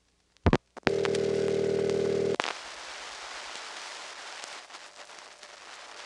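Telephone line through a step-by-step exchange. A sharp click comes about half a second in. It is followed by a buzzy ringback tone for about a second and a half, then hissing, crackling line noise.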